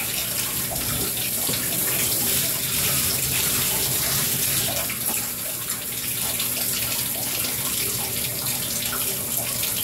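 Water running steadily from a handheld shower sprayer as a wet dog is rinsed in a bathtub, an even rush of water that does not let up.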